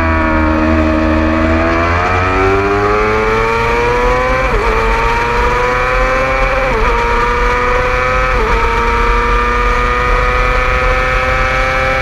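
600cc sport bike engine at racing speed. The revs sag for about a second, then climb hard out of the corner. Three quick upshifts, about 4.5, 7 and 8.5 seconds in, each drop the pitch before it rises again, all over a steady low rumble.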